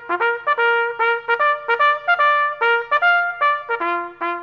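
Segment jingle: a solo trumpet playing a brisk tune of short, separate notes, about three a second, with one note held near the end.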